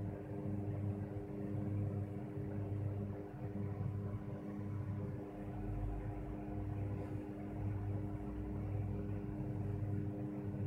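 Steady electrical hum with several constant tones and a low drone that swells and fades.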